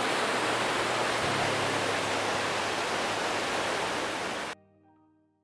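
Whitewater of a mountain stream rushing over boulders, a steady rush of water that cuts off abruptly about four and a half seconds in, leaving faint musical notes fading out.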